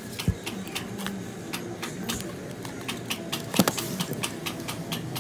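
Kitchen knife scraping and cutting into a coconut's husk in quick, repeated scratchy clicks, with a sharp knock about three and a half seconds in.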